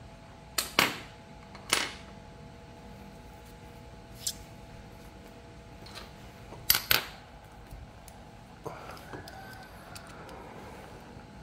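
A series of sharp clicks and knocks: two close together just under a second in, one near two seconds, one about four seconds in, and a louder pair near seven seconds. Fainter ticks follow, over a faint steady hum.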